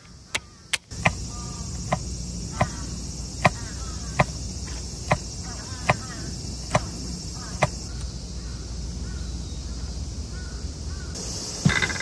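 Kitchen knife slicing garlic cloves on a wooden cutting board: a regular run of about nine sharp cuts, roughly one every 0.8 s, that stops about two-thirds of the way through. Insects chirp faintly underneath.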